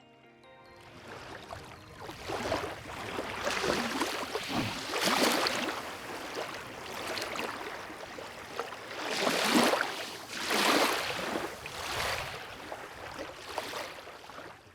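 Small waves lapping on a lakeshore, washing in surges every second or two.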